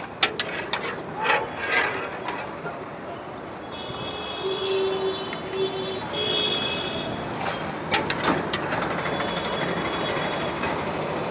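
Busy street noise with traffic. A held pitched horn-like tone sounds twice in the middle, and there are a few sharp knocks near the start and again later.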